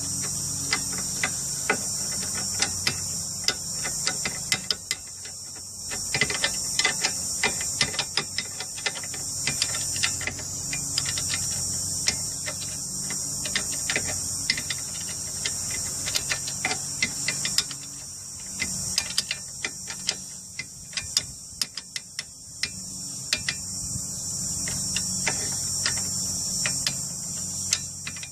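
Ratchet wrench clicking in quick irregular runs while a nut is run down on a new lower control arm.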